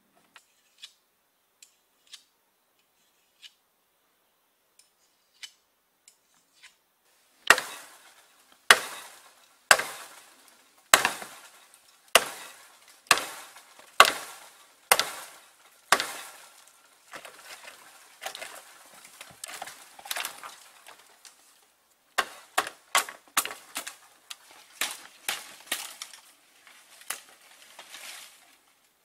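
Machete chopping into a stalk of iron bamboo: a few faint ticks, then about nine hard strokes about a second apart, each with a short ring. After that come lighter strokes and, near the end, quicker runs of hacking as the blade works along the pole.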